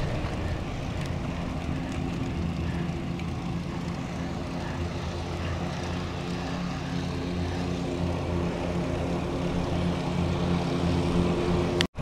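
A steady engine drone: a low hum made of several even tones that grows a little louder toward the end, over a haze of wind and road noise. It cuts off abruptly for an instant near the end.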